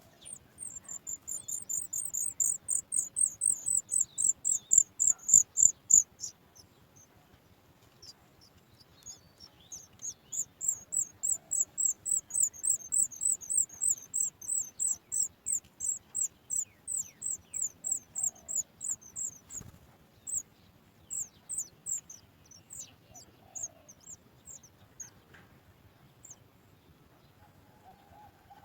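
Sooty chat nestlings begging for food: rapid, high, thin chirps, about four a second, in two long runs, the second thinning out into sparser calls near the end.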